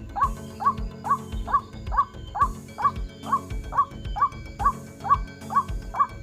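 White-breasted waterhen's croaking call, a short note rising then falling, repeated very evenly about twice a second like a lure call played on a loop, over a steady low hum.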